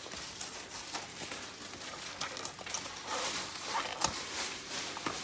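Cardboard box of breadcrumbs being opened by hand, with irregular crinkling and rustling of its packaging and one sharper knock about four seconds in.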